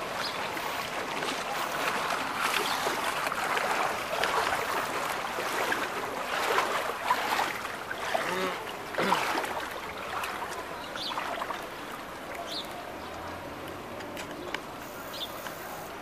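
Shallow floodwater in a street splashing and sloshing in an uneven wash, heaviest in the first half and easing off after about ten seconds, with a few faint short high chirps near the end.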